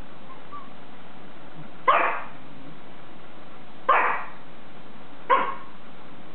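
Small dog barking three times: short, sharp barks, the second about two seconds after the first and the third about a second and a half later.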